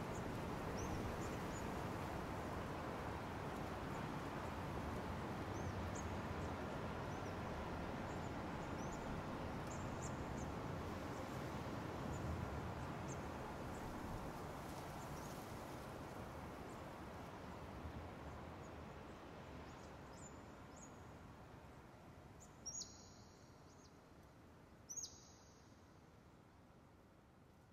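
Ambient noise wash, a steady hiss-like bed with faint high chirps scattered through it, fading out slowly over the second half. Two brief, sharp high sounds stand out near the end as it dies away.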